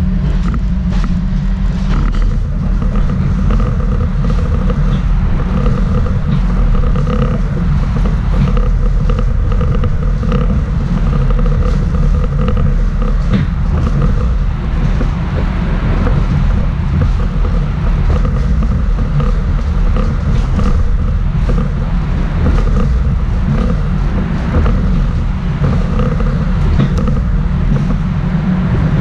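Interior ride noise of a Schindler Waggon AG Be 4/6 tram under way: a steady low rumble of the wheels on the rails, with a faint steady whine above it and scattered short clicks and scrapes.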